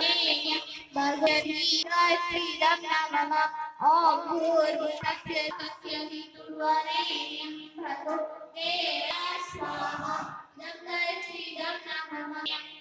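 A woman's high voice singing a devotional song with musical accompaniment, phrase after phrase with short breaths between.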